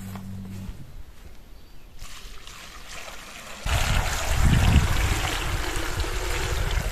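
Water poured from a bucket into a metal pot full of potatoes, splashing and trickling over them. The pour starts softly about two seconds in and becomes a loud, steady gush a little past halfway.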